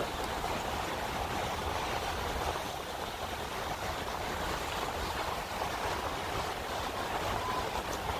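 Steady wash of waves against a rock jetty over a low rumble, with no distinct strikes or splashes standing out.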